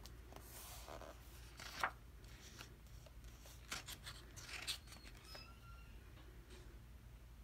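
Quiet paper rustling and handling noises from a photobook's pages as hands hold and press the open spread flat. There is a sharper rustle about two seconds in and a few more between four and five seconds.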